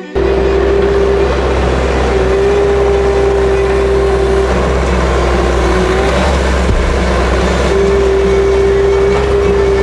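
A machine engine running steadily and loudly, with a constant whine that drops out briefly a couple of times, over a low rumble.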